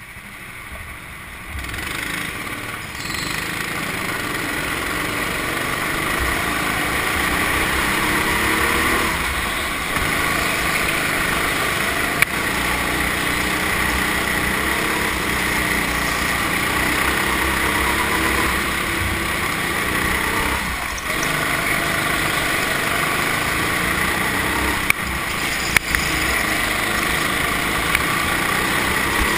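Go-kart engine heard from on board, pulling away from the grid about two seconds in, then running hard around the track with its pitch rising and falling through the corners, other karts' engines mixed in. A few sharp knocks, one midway and a couple near the end.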